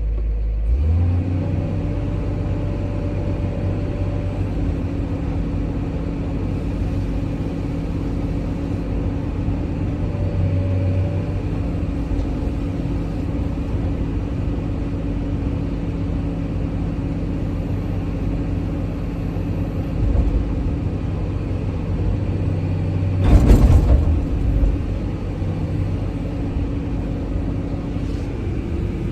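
Excavator's diesel engine running steadily, its tone shifting a few times, with one loud clatter about three-quarters of the way through.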